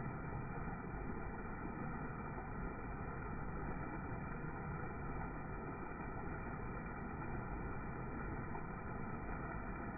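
Muddy floodwater pouring over a small rock-ledge waterfall on a flooded creek into a churning pool: a steady, low rushing of water.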